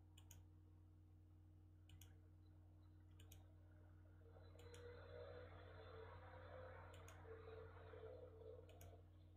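Near silence: room tone with a steady low hum and about six faint, scattered clicks.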